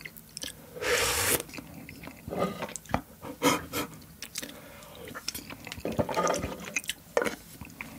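Close-miked mouth sounds of eating: a slurp of spicy ramen broth from a spoon about a second in, then chewing and many small wet mouth clicks.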